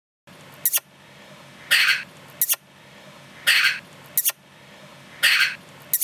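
Dog barking in an even, repeating loop, one bark about every second and three quarters, with a short sharp double snap between barks, over a low steady background hiss.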